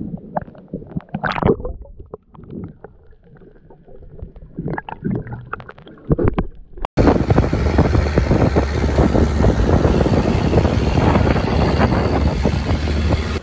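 Water sloshing and gurgling around a camera bobbing at the surface while snorkelling, in uneven splashes for about seven seconds. Then a sudden cut to a long-tail boat under way: its engine runs loudly and steadily with a deep hum, over rushing wind and water.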